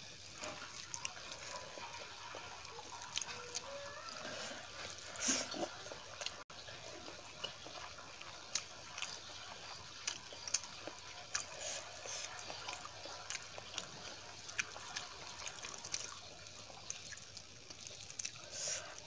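Close-miked wet eating sounds: chewing and lip smacks, with fingers squishing rice and curry on a steel plate, as many small irregular clicks and squelches.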